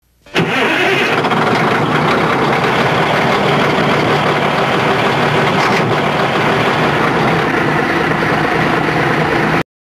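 A heavy machine's engine running steadily, loud throughout, starting abruptly about half a second in and cutting off sharply near the end.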